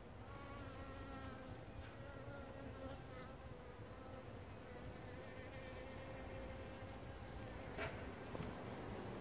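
Honeybees buzzing: a steady, faint hum, with a short click about eight seconds in.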